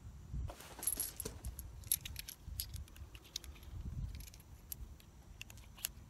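Light metallic clicks and jingling of loose brass revolver cartridges being handled, scattered and irregular, busiest in the first couple of seconds.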